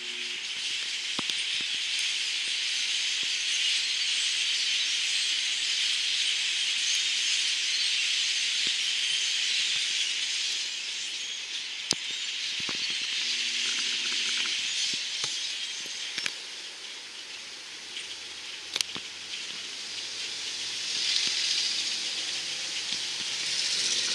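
A huge flock of migrating birds calling all at once: a dense, high chatter that swells and fades, with a few sharp clicks.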